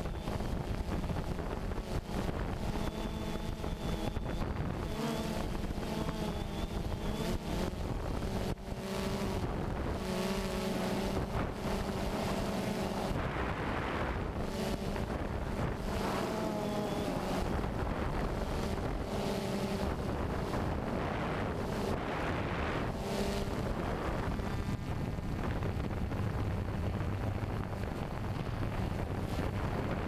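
DJI Phantom 2 quadcopter's motors and propellers heard from the camera mounted on it: a buzzing hum whose pitch keeps shifting up and down as the throttle changes, with wind buffeting the microphone.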